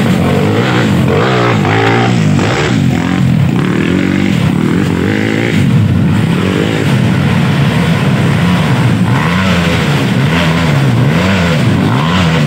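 Dirt bike engines revving hard and unevenly as they claw up a steep, loose dirt climb, several engines overlapping. Toward the end, one engine's pitch rises and falls over and over, about once every two-thirds of a second, as the throttle is worked in repeated bursts.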